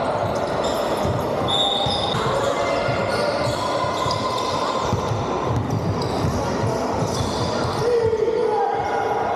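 Basketball game play on a wooden sports-hall floor: the ball dribbled in steady knocks, sneakers squeaking on the court, and players calling out, all with the echo of a large hall.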